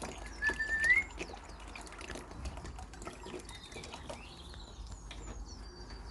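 Water pouring and trickling from a bottle into a plastic tub, with small splashes and a short rising gurgle about half a second in. Young pigeons give thin, high chirps near the end.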